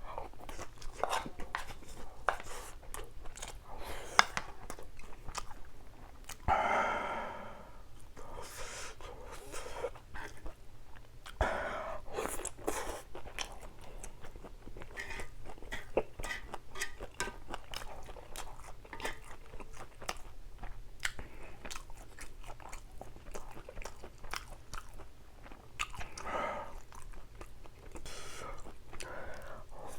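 Close-miked chewing and crunching of spicy stir-fried pork and raw vegetables, with a few louder bites.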